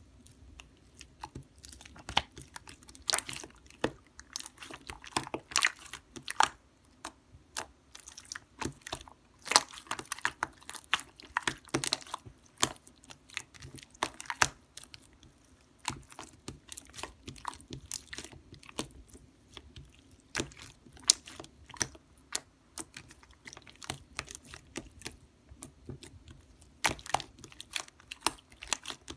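Hands squishing and pressing soft slime, making many irregular sticky clicks and small pops.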